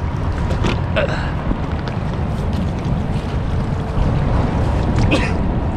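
Wind buffeting the camera microphone: a loud, continuous low rumble, with a few faint voices breaking through briefly.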